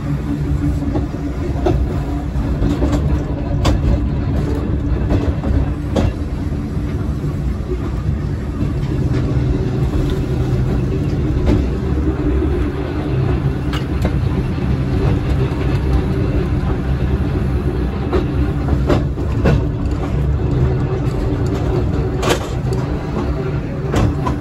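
Volk's Electric Railway car running along its track: a steady low rumble and hum from the electric car and its wheels on the rails, with scattered sharp clicks and knocks from the track.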